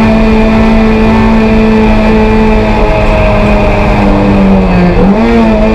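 Toyota MR2 race car's engine running hard at high, near-steady revs, heard from inside the cabin. About three seconds in the pitch starts to sag slowly, and near the end it dips and rises again quickly.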